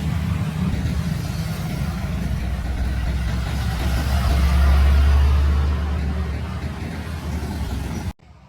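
UD Quester truck's diesel engine running loud under load on an uphill climb, a deep steady rumble that swells to its loudest about halfway and then eases off. The sound cuts off abruptly near the end.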